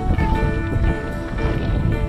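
Background music, a melody of short repeated notes, over a low rumbling noise.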